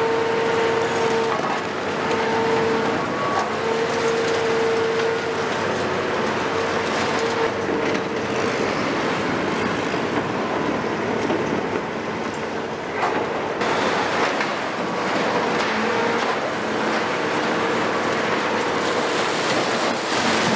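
Heavy demolition excavators working: diesel engines and hydraulics running under load with a steady whine that comes and goes, over a constant rumbling clatter of breaking concrete. The sound changes abruptly about two-thirds of the way through.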